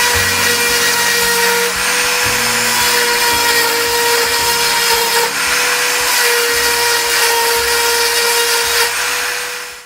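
High-speed rotary tool with a small grinding stone, sharpening the cutters of a chainsaw chain. It runs with a steady high motor whine over a gritty grinding hiss, dipping briefly a couple of times as the stone moves between teeth, then cuts off suddenly near the end.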